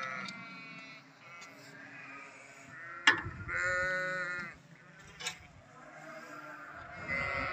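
Livestock bleating: a call near the start, a long bleat about three and a half seconds in and another near the end. Sharp knocks about three and five seconds in, the first the loudest sound.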